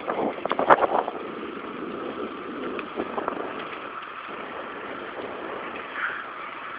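Steady rush of wind and tyre noise from a bicycle coasting fast downhill, with a short burst of rattling in the first second.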